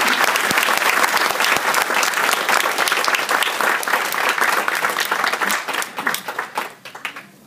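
Audience applauding: many people clapping at once, dense and steady, then thinning out and fading away near the end.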